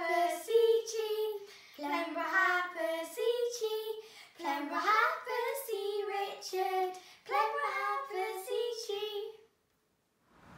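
Young girls singing a song unaccompanied, in phrases of held notes. The singing stops about nine seconds in.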